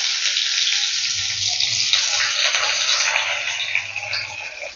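Chopped onions sizzling in hot mustard oil with panch phoron in a kadai: a steady frying hiss with small crackles that slowly quietens toward the end.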